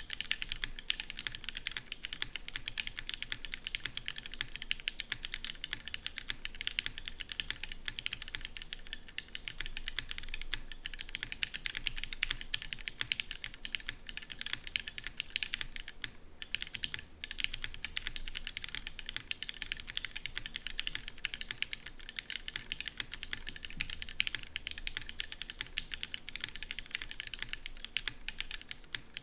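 Continuous fast typing on an RS60 custom mechanical keyboard with linear Cherry MX Black switches lubed with 205g0, an aluminium plate and GMK keycaps: a dense, unbroken stream of keystrokes with a short pause about sixteen seconds in.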